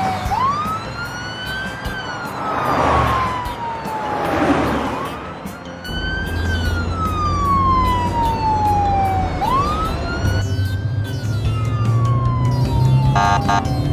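Police car siren wailing: each cycle jumps quickly up in pitch and then falls slowly for about four seconds, three cycles in all, over a low steady vehicle hum. A short buzzy note sounds near the end.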